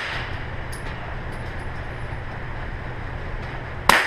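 A handgun firing a single shot near the end, a sharp crack with a short ring-off in the enclosed shooting lane, over a steady low hum; the ring of the previous shot is still fading at the start.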